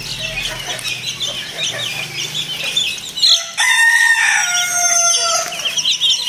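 Month-old Ayam Cemani chicks peeping continuously in quick, high chirps. About three seconds in, a rooster crows once, a call of about two seconds that falls slightly at the end and is the loudest sound here.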